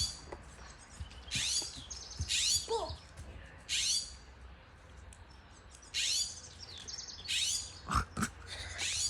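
Blue jay calling over and over, scolding a cat: short calls about a second apart, each falling in pitch. There is a single thump about eight seconds in.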